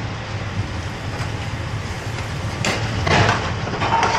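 Steady roar of a commercial kitchen's lit gas burners and ventilation, with a few clatters of metal ladles against pans about three seconds in.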